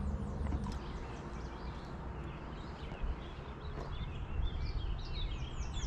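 Small birds chirping, with short quick falling chirps scattered through and a run of them near the end, over a steady low outdoor rumble.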